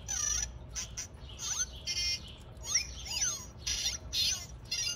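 Zhu Zhu Pets hamster toy's electronic chirps and squeaks playing through a freshly fitted replacement speaker, a string of short sounds gliding up and down in pitch: the speaker works again. The voice is pitched between normal and low.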